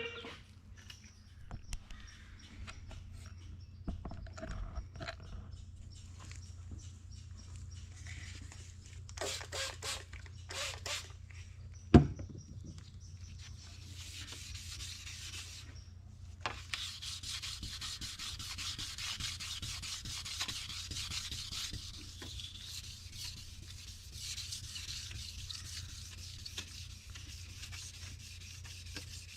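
Fine 1,500-grit sandpaper rubbing back and forth on stainless steel car trim, taking out the scratches left by coarser grit. It starts with scattered handling clicks and one sharp knock about halfway, then becomes steady rubbing, over a constant low hum.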